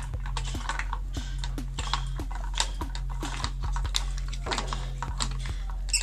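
Irregular light clicks and taps of a screwdriver and fingers working the brass screw terminals and plastic body of an old wall switch and socket, over a steady low hum.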